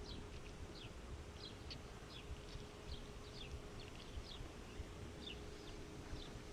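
Small birds chirping: short, high, falling notes, a few each second, over a faint steady hum.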